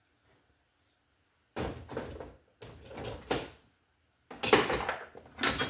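Tools and a tool box being handled: four short bouts of clunking and rattling with quiet gaps between.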